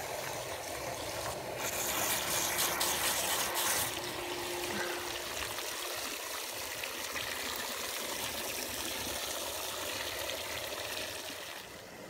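Shallow pool water sloshing and splashing around a submersible drain pump as it is stirred by hand, agitated to keep the fine silt suspended so the pump can draw it out. The splashing is loudest and brightest about two to four seconds in.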